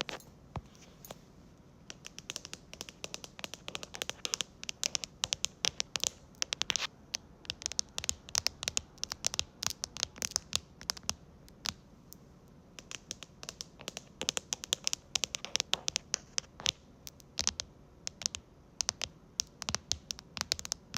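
ASMR tapping and scratching with fingertips and fingernails on a keyboard and floor surface: quick, irregular runs of sharp clicks broken by short pauses.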